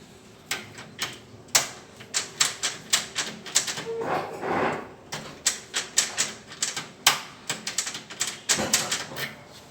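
Irregular series of sharp metal clicks and taps, about two or three a second, from hand work on a tetra-type key copy that is being corrected because it did not work.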